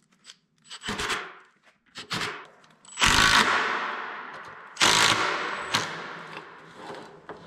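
Cordless impact driver hammering screws through a swivel caster's steel mounting plate into a wooden workbench leg, in rattling bursts. The longest bursts start about three seconds in and again near five seconds, with shorter knocks before and after.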